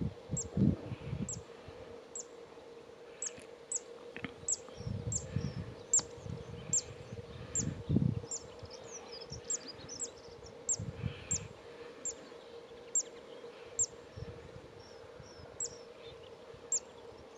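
Short, very high chirps, each dipping slightly in pitch, repeated about once or twice a second, over a steady low hum and a few brief low rumbles.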